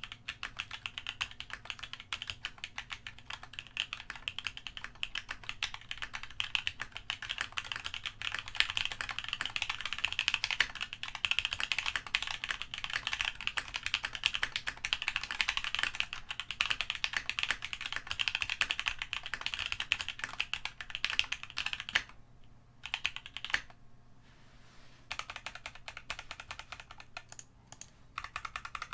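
Fast, continuous typing on a DZ60 60% keyboard in an acrylic Tofu case with a polycarbonate plate, H1 switches lubed with 205g0, and GMK keycaps. The typing stops about 22 seconds in, and after that there are only a few scattered keystrokes.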